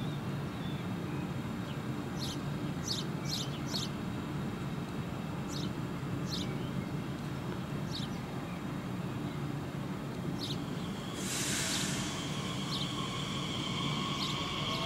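Small birds chirping in short repeated calls over a steady low rumble. About eleven seconds in, a brief hiss comes, then a steady high whine sets in as an electric train draws near.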